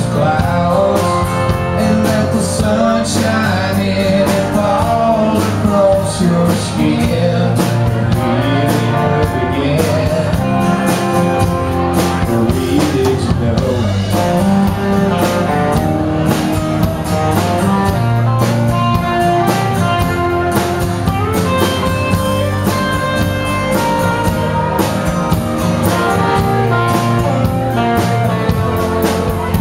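Live country band playing: electric guitars, electric bass, acoustic guitar and drum kit.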